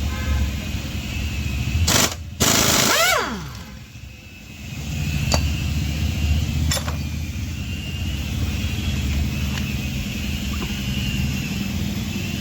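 A pneumatic air tool, such as an impact wrench, fires in two short rattling bursts about two seconds in, then spins down with a quickly falling whine. A few sharp clicks of metal follow over a steady low rumble.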